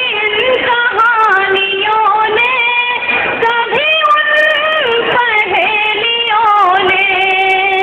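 A woman's voice singing a verse of Urdu poetry in the sung tarannum style of a mushaira, holding long notes with ornamented turns between them. The sound is thin and narrow.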